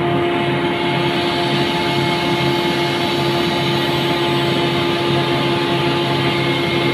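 Elite Air EAV 185AD double-screw air compressor with a permanent-magnet motor running steadily: a constant loud mechanical hum with several steady whining tones.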